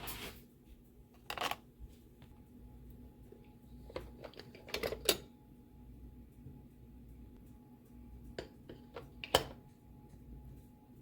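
Scattered sharp clicks and knocks of objects being handled, loudest about five seconds in and just after nine seconds, over a faint steady hum.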